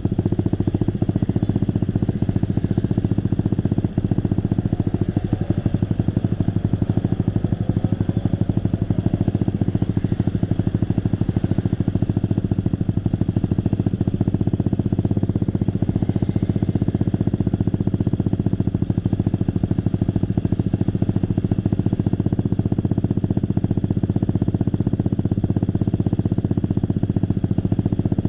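Motorcycle engine running steadily while riding, heard close up from the rider's own bike.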